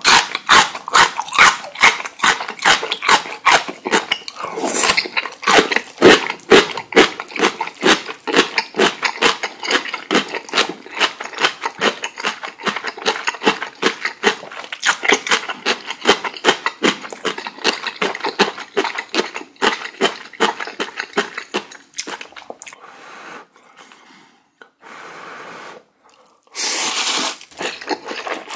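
Close-miked eating sounds of spicy ramen noodles in broth: rapid wet slurps and chews, several a second, thinning out about 22 seconds in, then one longer, louder slurp near the end.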